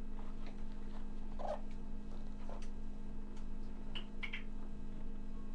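Pages of a large glossy picture book being turned and handled: scattered short rustles and a few brief squeaks, over a steady low hum.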